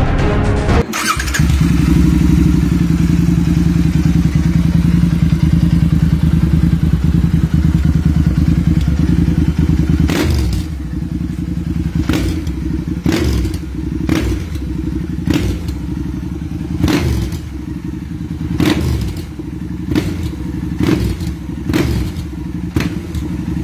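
Royal Enfield Interceptor 650's air-cooled parallel-twin running through a custom Zard end-can exhaust, first at a steady idle. From about ten seconds in it is revved in a string of quick blips, each with a sharp crack from the exhaust, roughly once a second.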